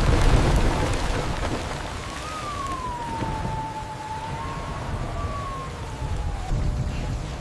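Storm soundtrack of heavy rain and low rumbling, with a loud surge right at the start. In the middle, a single long wailing tone rises and then slowly falls away.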